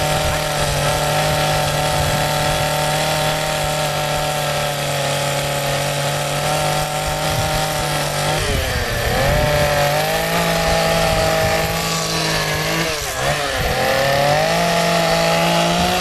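Chainsaw running at high revs while carving a tree stump, its pitch dipping briefly about three times as it cuts into the wood.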